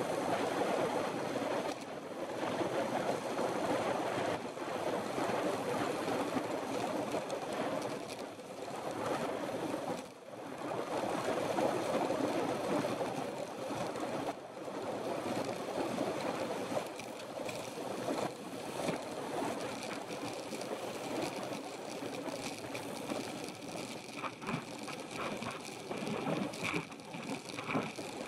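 Wind and road noise from a road bicycle riding at speed: a rushing, gusting noise over the handlebar-mounted camera's microphone, mixed with tyre noise on the asphalt.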